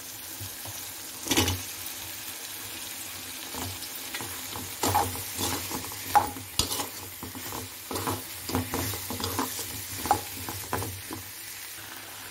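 Raw plantain slices sizzling in hot oil and onion-tomato masala in a metal kadai, stirred with a steel spoon that scrapes and clinks against the pan. The clinks come once about a second in and then often from about five seconds in.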